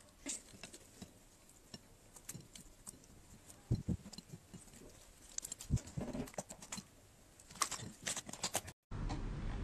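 Slime being squished and pulled apart by hand on a plate: scattered sticky clicks and crackles with a few soft low squelches. Near the end the sound cuts out briefly and gives way to a steady faint hiss.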